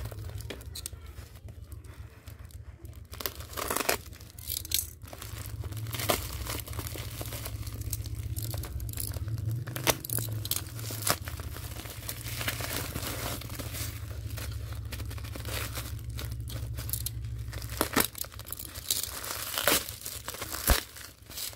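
Plastic parcel packaging torn open by hand: a taped black plastic mailer crinkling and ripping in sharp crackles, then bubble wrap rustling near the end, over a steady low hum.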